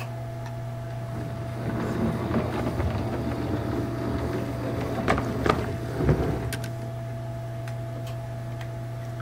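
O gauge model Peckett 0-4-0 saddle-tank locomotive running on track, its motor and wheels rattling and clicking over rail joints and points as it approaches, then going quiet as it stops about two-thirds of the way through. A steady low hum runs underneath throughout.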